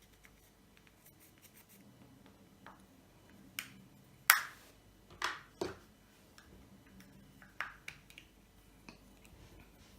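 White fluffy slime being worked by hand, giving a handful of sharp pops and squelches, the loudest a little past four seconds in.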